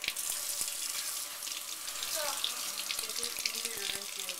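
Kitchen sink faucet turned on suddenly, water running steadily into the sink and a plastic bowl, with a hand held in the stream.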